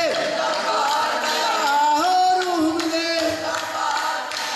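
Voices singing long held notes that slide in pitch between them, over music and crowd noise.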